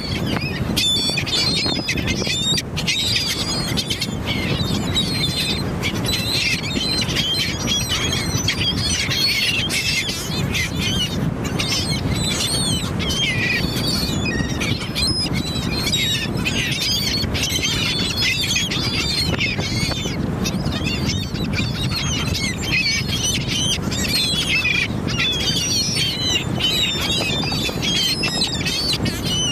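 A flock of seabirds squawking and calling, many short high calls overlapping without a break, over a steady low background noise.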